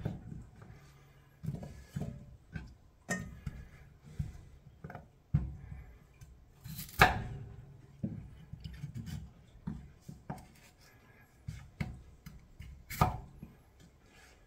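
Knife chopping potatoes on a cutting board: irregular knocks about a second apart, a few of them sharper and louder.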